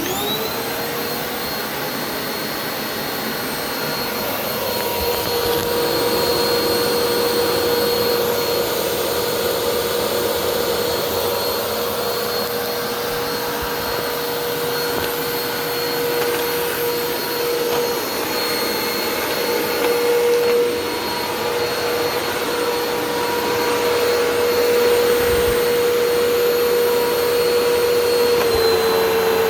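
Hoover T-Series WindTunnel Purely Clean UH70200 bagless upright vacuum cleaner switched on, its motor whine rising to speed within about a second and then running steadily over a rush of air. The pitch drops slightly near the end.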